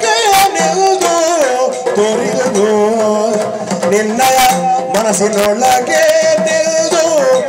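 A Yakshagana talamaddale song: a voice singing with wavering, ornamented lines over a steady held drone, accompanied by maddale drum strokes.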